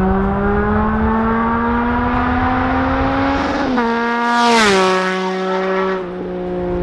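Triumph three-cylinder street bike accelerating toward the listener, its engine note climbing steadily, then passing close by about four and a half seconds in with a brief rush of noise and a steep drop in pitch. It carries on away at a lower, steady note.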